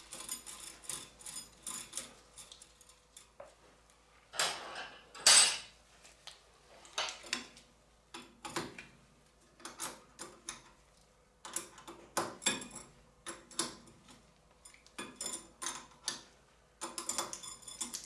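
Irregular light metallic clinks and ticks of a wrench and brake-line fitting being worked onto the rubber brake hose of a front disc-brake caliper, with one louder clink about five seconds in.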